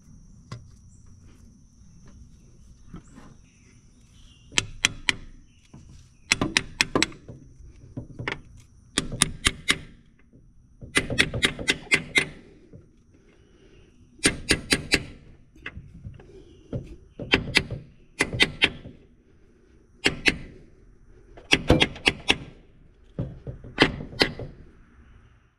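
Hammer blows on a new freeze plug in the L134 flathead's block, driving it into its bore and striking its centre to expand it so it bites and seals. The blows come in quick runs of two to four, every second or two, starting about four seconds in.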